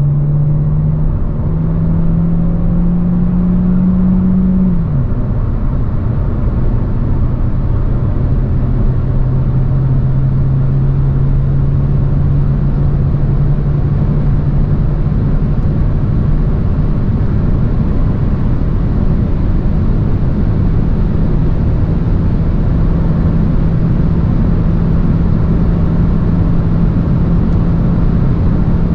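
Renault Clio E-Tech Hybrid's 1.6-litre four-cylinder petrol engine under hard acceleration, heard in the car over a steady rush of wind and road noise. The engine note climbs, drops sharply at a gear change about five seconds in, then holds nearly steady and creeps upward as the car nears its top speed.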